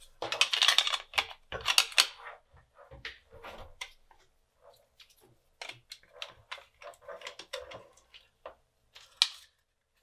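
Small electronic parts and a cable being handled on a workbench: a dense run of clicks and rustling for the first two seconds, then scattered light taps and ticks, with one sharp click near the end.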